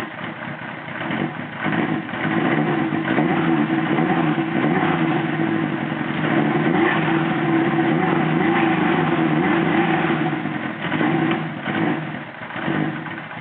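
Honda CB900 Custom's air-cooled inline-four engine running on freshly cleaned carburettors, its idle not yet set. The revs climb a second or two in, hold steady, then fall back near the end.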